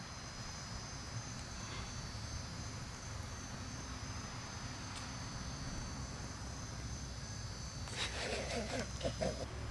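Steady insect chorus: several high, unbroken tones held evenly throughout. About a second and a half before the end, a short burst of louder knocks and noises comes over it.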